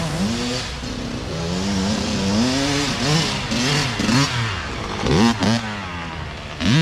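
Youth dirt bike engines revving up and down, their pitch rising and falling with throttle and gear changes. The sound is loudest about five seconds in and again near the end, as a bike comes close.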